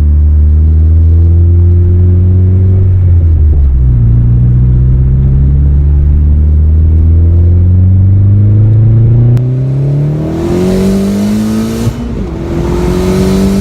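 Turbocharged VW 1.8T four-cylinder engine under hard acceleration, its pitch climbing through a gear, dropping at a shift about three and a half seconds in, then climbing again through the next gear. After about nine seconds the sound changes, with a hiss over further shorter rising pulls and a shift.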